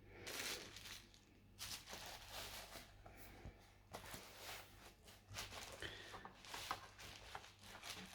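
Quiet handling noise: rustling and scraping in short bursts every second or so, with a few light clicks.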